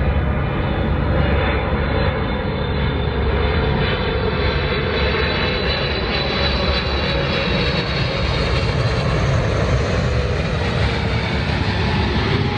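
Jet airliner coming in to land and passing overhead: a steady engine roar with a whine that slowly falls in pitch, its hiss growing brighter in the second half.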